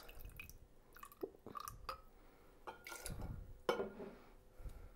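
Faint pouring and a few light clinks as lime juice is measured into a copper jigger and tipped into a copper cocktail shaker.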